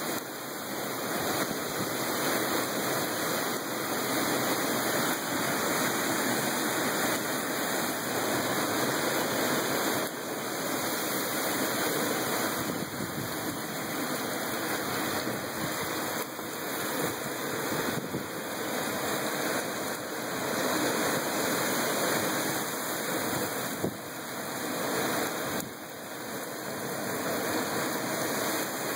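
Heavy rain pouring in a severe storm with strong wind gusts, a dense steady rush that swells and eases every few seconds.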